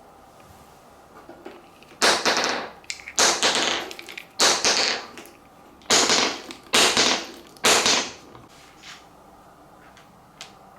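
Marbles clattering through a wooden marble run: six sharp clacks about a second apart, each trailing off in a short rattle.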